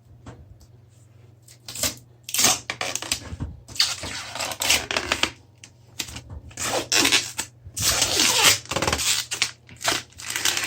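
Plastic protective film and packaging being rustled and torn off a new PC case's glass panel, in a run of irregular scratchy rasps that start about a second and a half in. A faint steady hum runs underneath.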